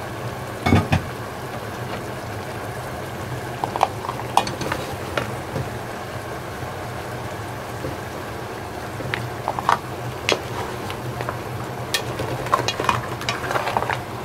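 Brown crab and leeks sizzling in a hot cast-iron pot, with a wooden spatula knocking and scraping against the pan every second or so as the pieces are stirred and turned.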